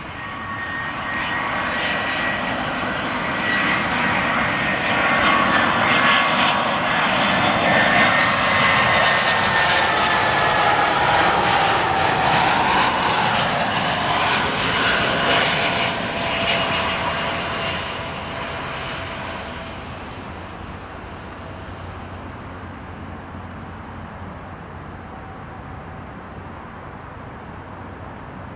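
Airbus A320-family airliner's jet engines on final approach as it flies close past: a rushing whine that swells over the first few seconds, holds loud, and drops in pitch as the aircraft goes by, then fades to a distant rumble.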